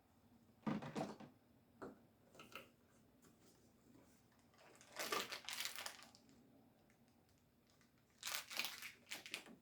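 Cardboard and plastic packaging of an advent calendar compartment being opened by hand: several short bursts of crinkling and tearing, the longest about five seconds in and again near the end.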